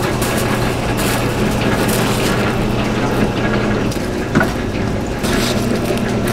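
Aluminium foil crinkling as hamburgers are wrapped in it, over a steady machine hum, with one sharp knock a little past the middle.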